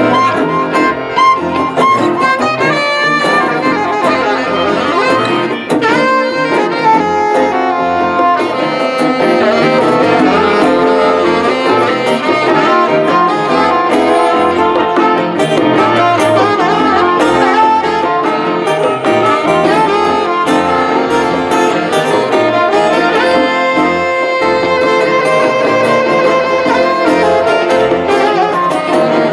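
Live band playing an instrumental passage: a saxophone leads the melody over electric guitars, bass and conga drums.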